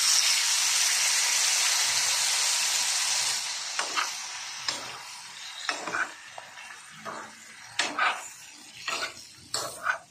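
Raw shell-on shrimp hitting hot butter in a frying pan: a loud sizzle that dies down after about three and a half seconds. Then a small metal spoon stirs the shrimp, with a string of short scraping strokes against the pan.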